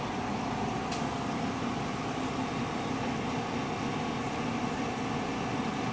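Steady hum of lab ventilation and equipment, with one faint click about a second in.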